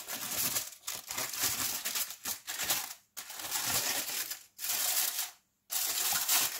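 Aluminium foil crinkling and rustling in irregular stretches as it is pulled open with tongs and a fork, stopping briefly about three seconds in and again near the end.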